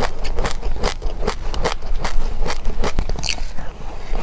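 Close-up chewing of a mouthful of crunchy mixed seeds with yogurt: a steady run of crisp crunches, about three or four a second, easing off after about three seconds, when a brief high ring is heard.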